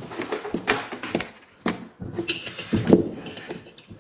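Irregular clicks, knocks and clatter of small tools and parts being handled and set down on a plywood workbench board, the loudest knock a little under three seconds in.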